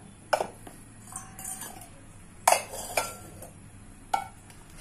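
Stainless steel kitchen vessels clinking and knocking as they are handled: four sharp clinks with brief metallic ringing, the loudest about two and a half seconds in.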